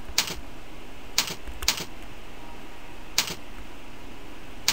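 Computer keyboard keys tapped about five times at uneven intervals while a name is typed through a Chinese input method, over a steady hiss.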